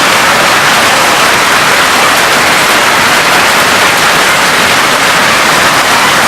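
Heavy rain and hail pouring down in a dense, steady hiss.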